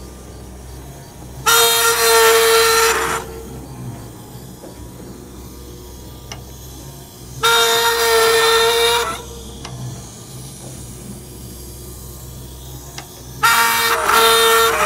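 Oil-well pumpjack running: a loud, high-pitched metallic squeal about a second and a half long, heard three times about six seconds apart, over a steady low hum.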